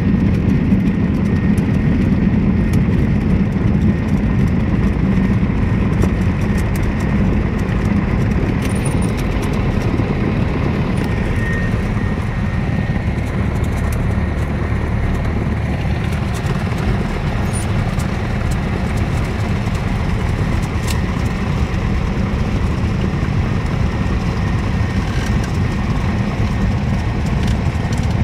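Cessna 172's piston engine and propeller running during the taxi, heard from inside the cabin as a steady, low drone.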